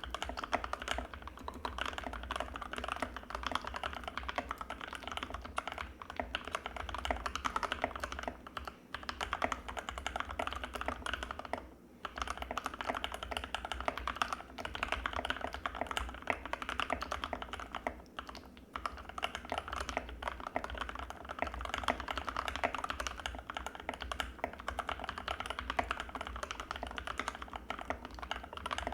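Anne Pro 2 mechanical keyboard with Gateron Red linear switches being typed on continuously: a dense, rapid stream of keystroke clacks with a few brief pauses.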